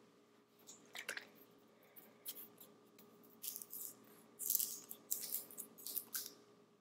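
Small apple cider vinegar shot bottle being twisted open by hand: a couple of faint clicks, then a run of short crackles from the cap and its seal in the second half.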